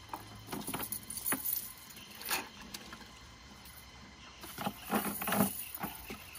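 A cast net being handled in a wooden boat: scattered light knocks and clinks of its chain sinkers against the hull. About five seconds in comes a denser run of rattling and splashing as the wet net is lifted.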